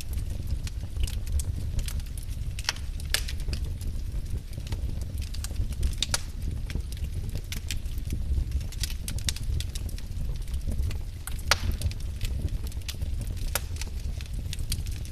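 Wood fire crackling: irregular sharp snaps and pops from the burning logs over a steady low rumble of the flames.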